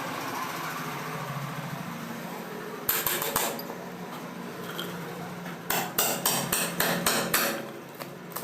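Quick, sharp taps of a hard tool on ceramic floor tiles, the way tiles are struck to find a hollow, loose spot: three or four taps about three seconds in, then a run of about eight at roughly four a second. A steady low hum runs underneath.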